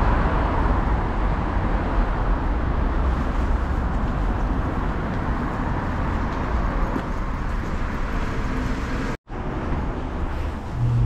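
Shinkansen train running at speed: a steady rumble and rush of noise, broken off by a brief cut about nine seconds in and then carrying on, with a low hum near the end.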